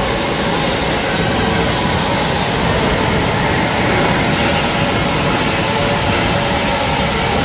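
Loud, steady machinery din of a pipe fabrication shop floor, an even roar with no distinct strokes or pauses.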